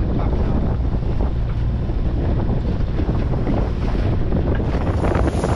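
Strong wind buffeting the microphone over the rush of choppy sea against a small sailing yacht's hull.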